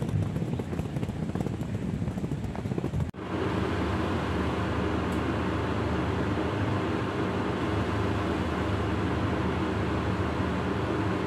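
Uneven rumbling noise for about three seconds, then a sudden cut to a steady mechanical hum that runs on unchanged.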